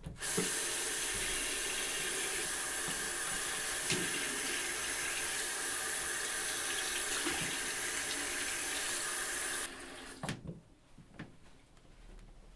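Bathroom sink tap running in a steady stream, with a few splashes as water is scooped to the face. The flow stops suddenly near the end, leaving only faint rustling.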